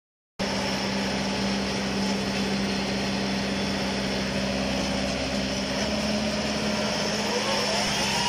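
Engine of a Yanmar 82 crawler rotary tiller running steadily under load as the machine works through a flooded, muddy paddy. Near the end a rising whine comes in over it.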